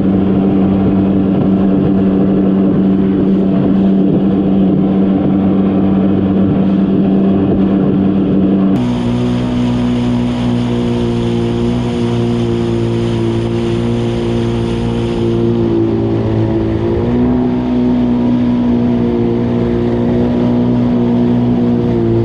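Jet ski engine running steadily at speed. About nine seconds in its pitch steps up abruptly, then rises briefly again a few seconds later.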